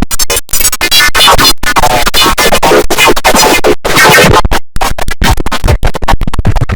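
Computer system sound, the IBM OS/2 Warp 3 shutdown sound, heavily distorted by stacked audio effects. It plays very loud and chopped into rapid stutters with brief dropouts, so it sounds like record scratching more than a chime.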